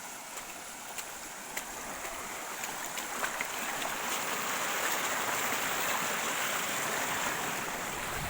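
Steady rushing noise that swells toward the middle, dotted with a few small clicks and snaps.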